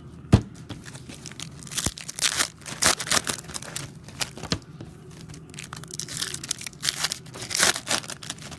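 Crinkling and tearing of a foil trading-card pack wrapper being handled and opened, in two spells, after a single sharp knock about half a second in.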